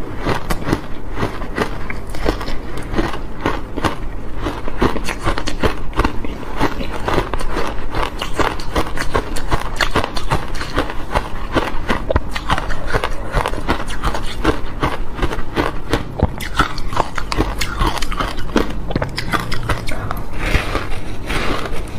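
Mouth crunching and chewing refrozen block ice coated in matcha powder, picked up close by a clip-on microphone: a dense, rapid, irregular run of cracks and crunches, with a fresh bite into a new block near the end.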